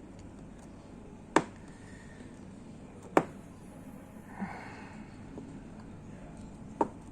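Three sharp clicks, the first two about two seconds apart and the last about three and a half seconds later, over a steady background hiss.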